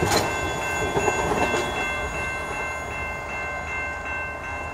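Holiday train's passenger cars rolling past on the rails and moving away, the rumble slowly fading, with a sharp click just at the start. Over it, a steady high ringing tone pulses about three times a second.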